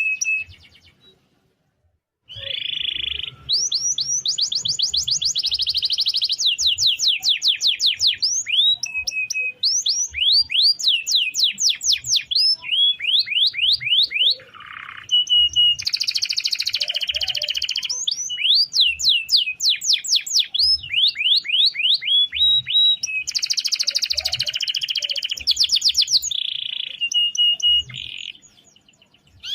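Domestic canary singing a long rolling song: fast runs of repeated sweeping notes and trills, broken by short steady buzzy notes, after a brief pause about two seconds in.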